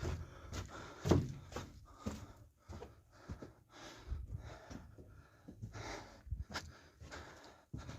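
Irregular footsteps, scuffs and breathing of a person moving through an enclosed tunnel, with a louder thump about a second in.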